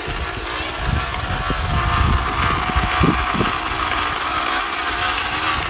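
Plastic bottle fixed to a bicycle frame so the turning spokes flick against it, making a continuous fast rattling buzz meant to imitate a motorbike engine.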